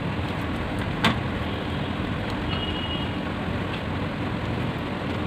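Steady rushing hiss of a lit gas stove burner under a pan, with a single short click about a second in.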